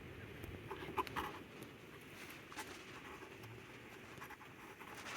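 Faint, scattered light clicks and taps of hands and tools working the cable end and its washers at the outboard's shift and throttle linkage, the sharpest about a second in.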